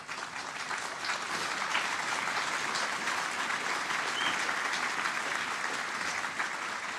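Large crowd applauding, building up within the first second and then holding steady.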